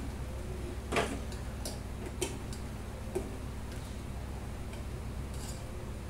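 A steel ladle stirring curry in a pressure cooker pot, clinking against the pot's metal side a handful of times, loudest about a second in, over a steady low hum.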